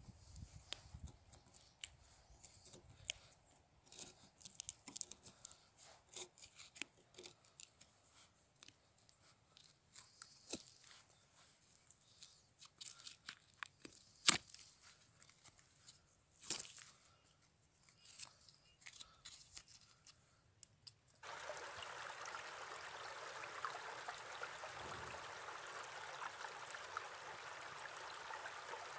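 A fixed-blade knife scraping and shaving the papery bark of a birch log in irregular strokes, with sharp cracks as strips split away, the loudest about 14 s in. About 21 s in it gives way to the steady rush of a small stream running between rocks.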